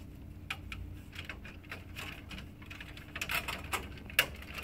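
Irregular light plastic clicks and knocks as a replacement pickup roller is pushed onto its shaft and tugged to check it is secure inside the paper-tray cavity of an HP LaserJet M712/M725. The clicks crowd together near the end, with one sharper click a little after four seconds.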